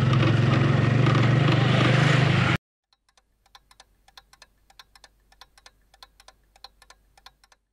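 A motorcycle engine running as the bike is ridden, cutting off abruptly about two and a half seconds in. It is followed by a faint run of quick typewriter-style key clicks, about three a second.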